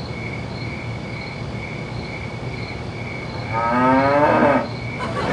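A cat gives one long, low meow about three and a half seconds in, over a steady hiss.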